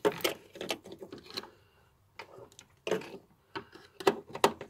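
Irregular taps and clicks of a screwdriver against the in-tank fuel pump's metal locking ring, knocking the ring round to undo it. The two sharpest knocks come near the end.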